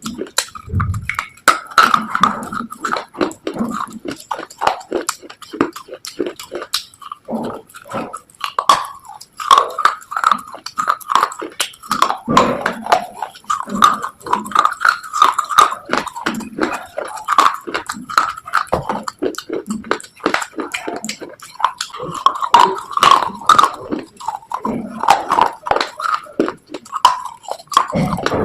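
A person biting and chewing crunchy pieces of slate close to the microphone: a dense, irregular run of sharp crunches and crackles.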